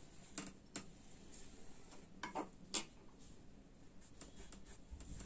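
Faint scratching of a marking tool drawn across stiff canvas interfacing as a neckline curve is traced, a handful of short strokes with light ticks between them.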